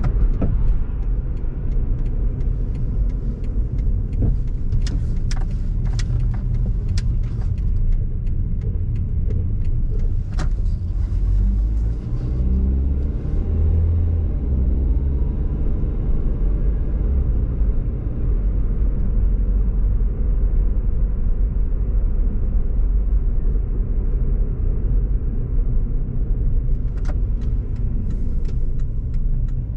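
Car driving on a dry paved road: a steady low rumble of engine and tyres, with a few sharp clicks a few seconds in and again near the end.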